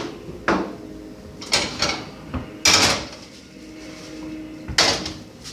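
Kitchen handling noises: about six short scraping and sliding clatters, the longest about three seconds in, as a dish and utensils are moved around on the counter.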